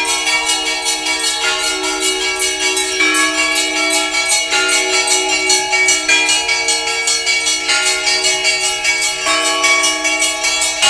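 Orthodox cathedral bells rung in a fast peal: small bells struck about five times a second over deeper bells left ringing. The chord of bells shifts every second and a half or so.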